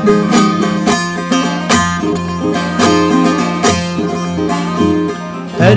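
Instrumental interlude of a Turkish folk song: a plucked string instrument playing a quick melody of short struck notes over a steady low drone, with no singing.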